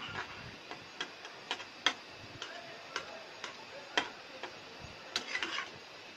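Spatula tapping and scraping against a metal pan while a block of instant noodles is broken up in simmering water: sharp, irregular clicks, about two a second.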